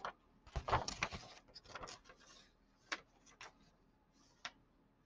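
Faint rubbing and rustling of a hand brushing over a sheet of black drawing paper, followed by a few separate sharp ticks.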